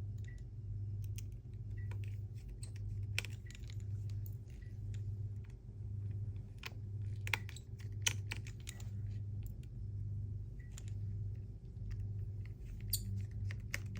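Small scattered clicks and taps of metal repair tools and tiny screws on the phone's internal shield during reassembly. Under them runs a steady low hum that swells about once a second.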